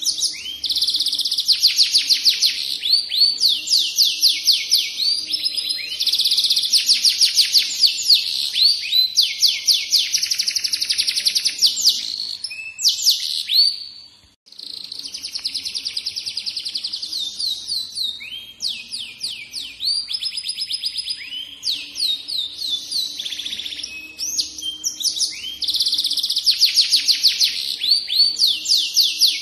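F1 domestic canary singing a long, continuous song of fast high trills and rolling repeated notes. The song breaks off briefly about fourteen seconds in and then carries on.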